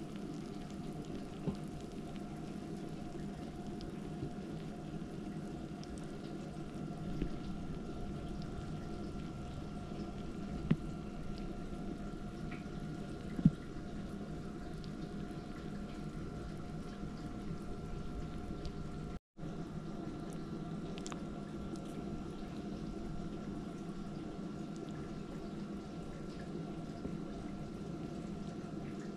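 Steady low hum and hiss of room or appliance noise, with two faint steady tones running through it. A few sharp light clicks stand out, the loudest about ten and thirteen seconds in.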